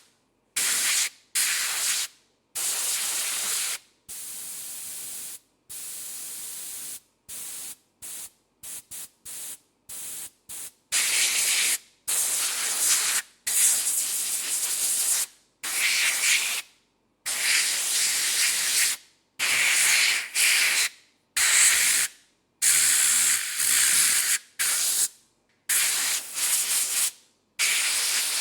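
Compressed air blown onto a hand in many separate bursts of hiss, each starting and cutting off abruptly with silence between. The bursts are quieter for a few seconds after the start, then come as a quick run of short puffs, then as longer, louder blasts from about eleven seconds on.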